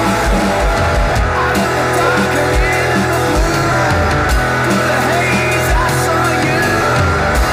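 Garage rock song: electric guitar, bass and drums playing together, with a steady kick-drum beat under held bass notes.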